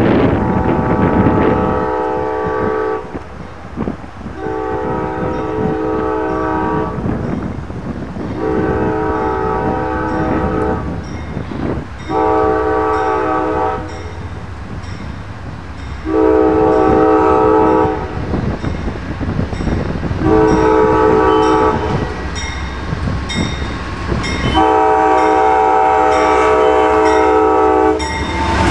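Amtrak diesel locomotive's horn sounding a string of seven blasts of varying length for a grade crossing. A crossing bell dings steadily underneath, and the train's rumble arrives near the end.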